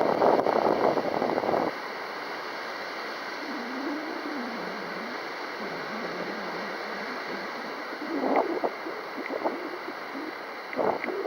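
Strong wind buffeting the microphone in gusts, loudest in the first second or so and again in the last few seconds, with a steady rushing between and a faint hum that wavers up and down in pitch in the middle.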